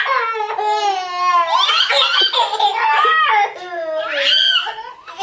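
Small child laughing in high-pitched, long wavering peals during rough-and-tumble play with a blanket.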